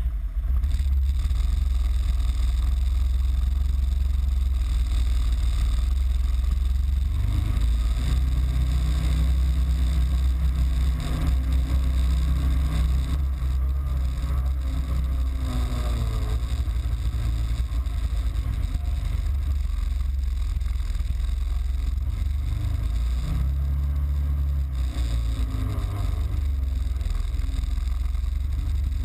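Side-by-side UTV engine running under way, heard from inside the open cab, with a deep steady drone. The engine note rises and falls as it speeds up and slows, most clearly in the middle and again near the end.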